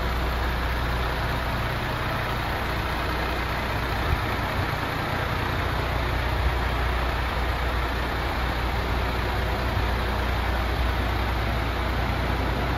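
MAN TGX 26.440's 440 hp Euro 6 straight-six diesel idling steadily with a low, even rumble, with two brief knocks about four and six and a half seconds in.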